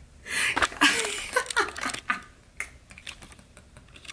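A woman giggling and breathing out in short bursts, with clicks and rustles of handling close to the microphone.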